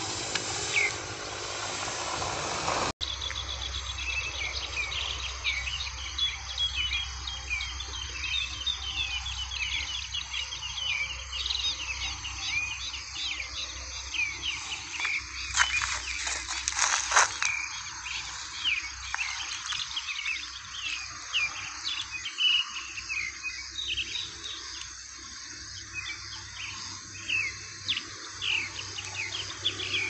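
A flock of birds calling with many short, repeated chirps, agitated calls of birds mobbing a small drone, with a louder burst of calls about halfway through. A steady hiss in the first few seconds cuts off suddenly, and a faint low hum runs underneath.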